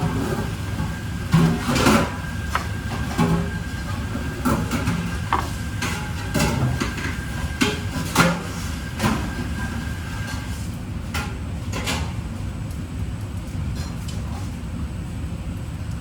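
Scattered knocks and clatter of kitchen work over a steady low rumble, with a faint thin steady whine that stops about eleven seconds in.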